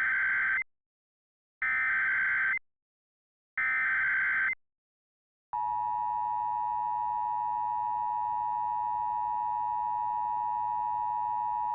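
Emergency Alert System header: three one-second bursts of warbling digital data tones, then the steady two-tone EAS attention signal, which starts about five and a half seconds in.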